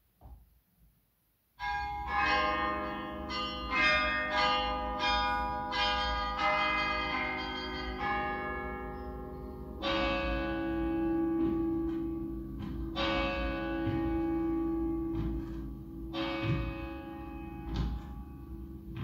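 Recorded bells played through hi-fi loudspeakers: a quick run of bell strikes about two a second begins nearly two seconds in, then gives way to slower, longer-ringing strokes a few seconds apart.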